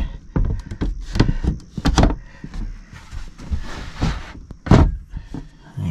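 Knocks and clatter of a small sailboat's cabin hatch being shut and secured: a quick string of sharp knocks in the first two seconds, then two louder knocks about four and five seconds in.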